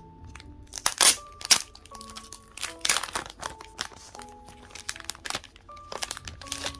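Album packaging crinkling and rustling in repeated sharp bursts as it is handled, loudest about a second in and again near three seconds, over soft background music with held notes.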